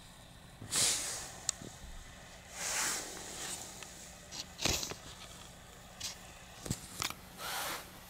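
A cat nuzzling and head-butting against the camera at close range: about four short hissing, scratchy rushes of fur and breath against the microphone, with a few small knocks in between.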